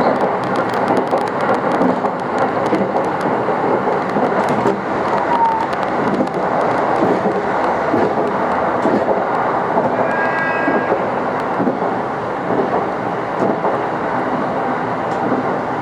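Electric train running at speed on the rails: a steady, loud rumble of wheels and running gear, with a brief high tone about ten seconds in.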